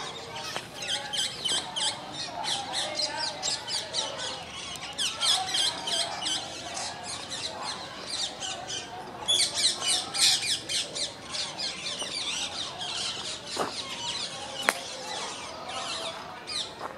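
A flock of birds chirping and squawking without pause in the trees, many quick high chirps overlapping. A single sharp click stands out near the end.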